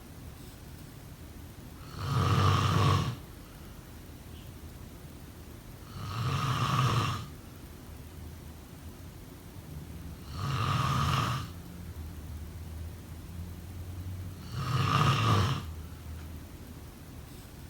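A sleeper snoring steadily, four snores about four seconds apart, each lasting about a second, with a low steady hiss between them.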